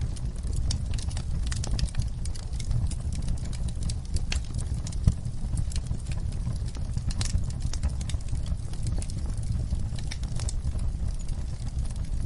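Wood fire crackling, with many irregular sharp pops over a steady low rumble of burning; one louder pop about five seconds in.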